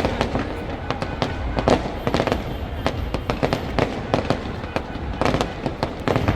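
Fireworks display going off close by: a rapid, unbroken run of bangs and crackles, many shells bursting each second.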